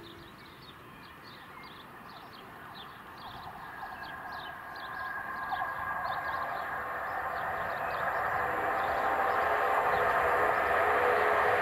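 Southern Class 377 electric multiple unit approaching on curved track, growing steadily louder, with a steady whine rising out of the running noise in the second half.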